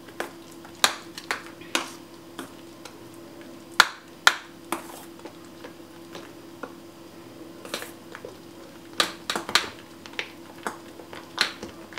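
Metal spoon stirring a thick cream-cheese and whipped-cream mixture in a stainless steel saucepan, clinking irregularly against the pot's side, with soft squelches of the cream. A steady hum runs underneath.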